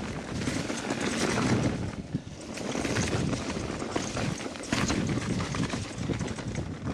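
Mountain bike riding down a rough, stony dirt trail: tyres crunching over stones and ruts, with a constant rattle and clatter of the bike over the bumps.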